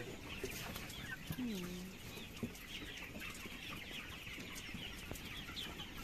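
A large flock of broiler chickens peeping and chirping, many overlapping high calls at once in a steady chorus, with one lower call about a second and a half in.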